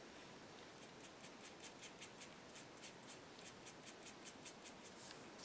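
Faint, quick scratchy brush strokes, about four or five a second: a small paintbrush being worked back and forth to load it with purple acrylic paint.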